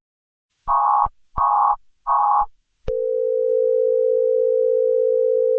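Emergency-alert-style electronic data tones: three short buzzy bursts in quick succession. A click follows about three seconds in, then a steady, unchanging electronic tone.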